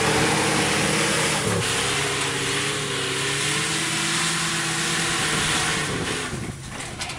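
1967 Ford pickup truck's engine revving hard during a burnout across a field, its pitch climbing, dipping briefly about a second and a half in, then held high. It fades near the end as the truck pulls away.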